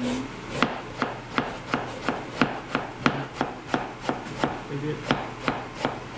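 Kitchen knife slicing a vegetable on a plastic cutting board: steady, even cuts at about three a second.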